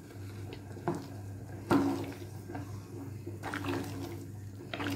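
Wooden spoon stirring rice, vegetables and water in a pressure cooker pot: wet sloshing with a few knocks of the spoon against the pot, the loudest about two seconds in, over a low steady hum.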